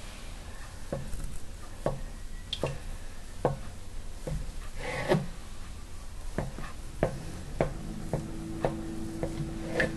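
Kitchen knife pressing through soft biscuit dough and tapping on a plastic cutting board: about a dozen short, soft knocks at uneven intervals, roughly one a second.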